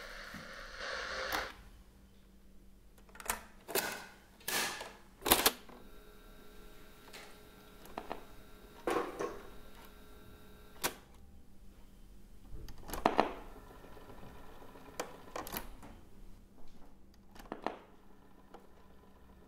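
Separate mechanical clicks and clunks from a portable cassette player being handled and its buttons pressed, about a dozen spread unevenly. A hiss runs underneath at first and cuts off about a second and a half in.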